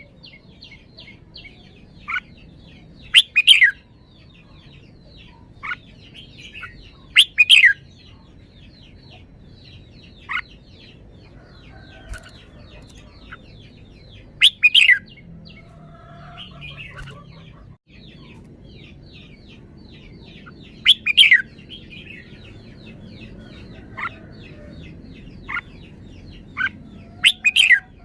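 Red-whiskered bulbul singing loud, short, sweeping phrases about six times, with brief single notes in between, over a constant soft high chattering.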